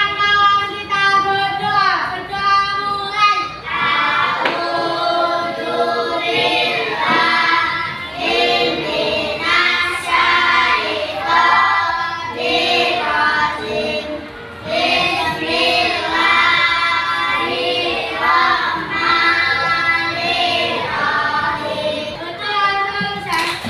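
A group of children singing a song together in unison, in phrases of held notes with a short break partway through.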